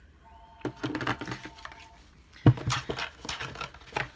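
Makeup products and their packaging being handled on a table: light rustling and small clicks, with one louder knock about two and a half seconds in as something is set down.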